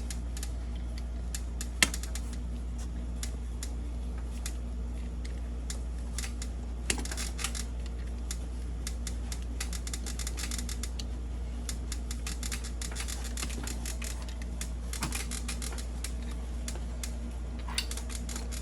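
Scattered small metallic clicks and ticks of pliers working the small brake pad retaining pins out of a front brake caliper, with one sharper click about two seconds in, over a steady low hum.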